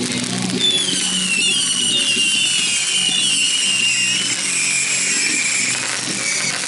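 Whistling fireworks: several shrill whistles at once, wavering and slowly falling in pitch for about five seconds from just under a second in, over a steady low hum.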